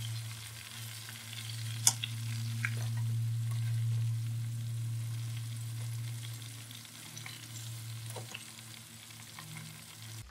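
Chicken pieces deep-frying in hot oil, bubbling and sizzling steadily over a low hum, as a metal spatula turns them in a steel pan. A few sharp clicks of the spatula against the pan, the loudest about two seconds in.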